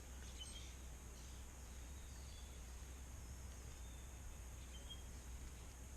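Faint outdoor ambience: a steady low hum and hiss with a few faint, short bird chirps scattered through.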